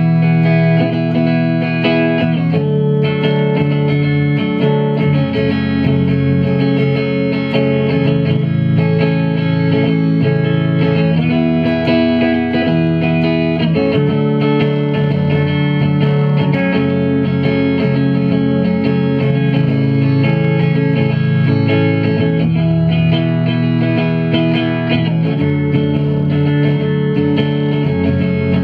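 Guitar music: held chords that change every two to three seconds, at a steady loud level.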